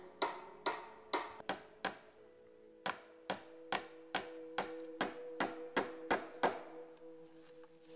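Steady, even blows of a hand tool striking wood, about two a second, in two runs with a pause of about a second near two seconds in. Two steady humming tones run underneath and carry on after the blows stop.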